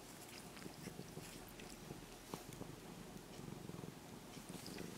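Young orange-and-white cat purring, a faint, steady low purr, with a few soft clicks as it licks its paw.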